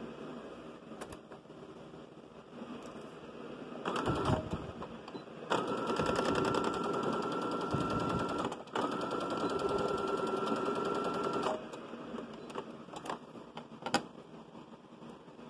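Electric sewing machine stitching a seam. A short burst of stitches comes about four seconds in, then the machine runs steadily for about six seconds with a brief pause partway, a steady motor whine over rapid needle strokes. A couple of sharp clicks follow near the end.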